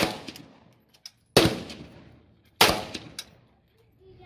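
Three single shots from an AK-pattern rifle in 7.62x39, spaced about a second and a quarter apart, each a sharp crack followed by a ringing echo.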